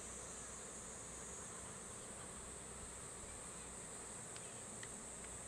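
Insects buzzing in a continuous high-pitched drone, over a steady low rushing wash.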